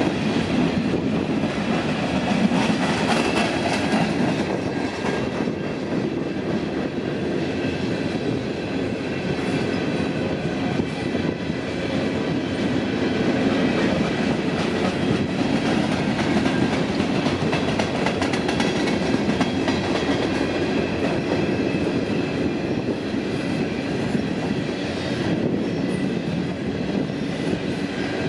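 Loaded coal train rolling past, a steady rumble of the cars with the clickety-clack of wheels over rail joints.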